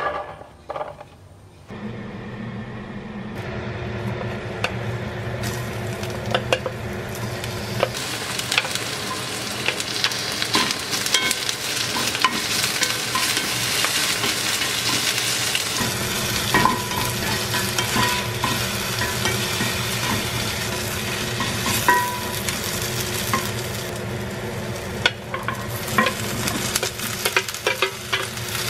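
Sliced onion frying and sizzling in oil in an enamelled cast-iron Staub pan, stirred with a wooden spatula that scrapes and taps against the pan. A few clicks come first, and the sizzle starts about two seconds in and keeps going steadily.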